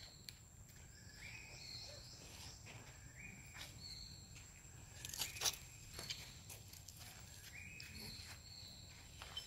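Outdoor ambience: a short, high call of stepped notes repeats several times over a steady high whine. About five seconds in, a brief cluster of rustling steps on dry ground is the loudest sound.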